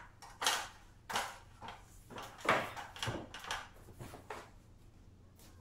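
Irregular knocks and clatters from an aluminium stepladder being climbed and a large flat board being lifted and handled against it, about half a dozen sharp knocks over a few seconds.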